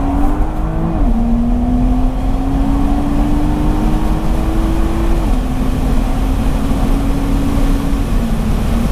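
BMW M2's turbocharged straight-six, tuned to 430 bhp, accelerating through the gears, heard from inside the cabin: the engine note climbs, drops at an upshift about a second in, climbs again until a second upshift around five seconds, then holds nearly steady.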